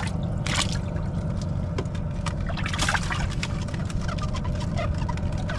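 Water splashing and trickling, with many short irregular clicks and knocks, over a steady low rumble.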